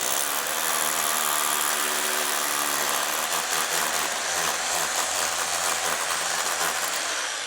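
Electric power tool, such as a drill, running steadily at full speed, beginning to wind down at the very end.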